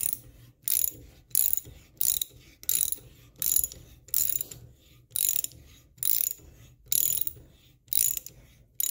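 Hand reamer being turned through a drilled hole in a steel part in short repeated strokes. A short, bright rasp comes about every three-quarters of a second, a dozen or so times.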